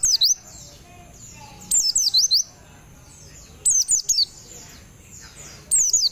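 White-eye (pleci) singing: short bursts of a few quick, high whistled notes that swoop down and up, repeated four times about two seconds apart.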